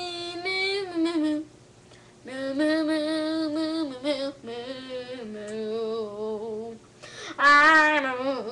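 A boy singing a made-up tune without words in four short phrases of held, wavering notes. The loudest phrase comes near the end and swoops up high and back down.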